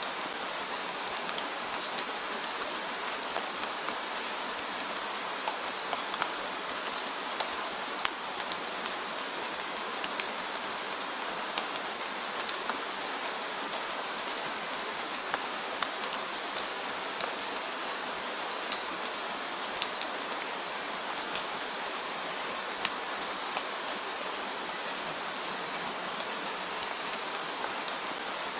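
Steady rain falling, a constant hiss with many sharp drop ticks scattered through it.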